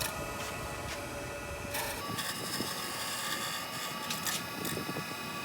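Wen benchtop wood lathe running, a steady mechanical sound with level tones. About two seconds in the low rumble drops away and a new steady tone sets in, with a few short ticks.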